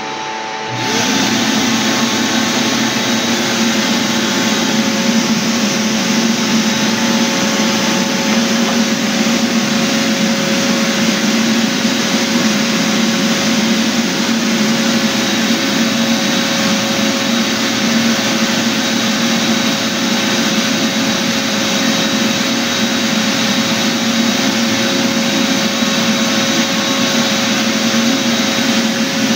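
Floor sanding machine running steadily, a continuous whirring hum that comes up to full level about a second in.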